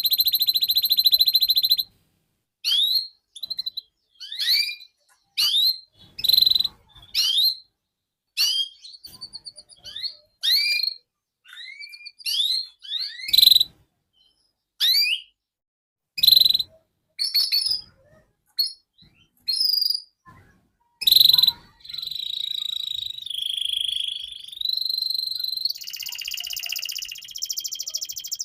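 Canary song: a fast, high, steady trill that stops about two seconds in, then a string of separate short, sweeping chirps with silent gaps between them. About three quarters of the way through it moves into unbroken rolling trills that step up and down in pitch.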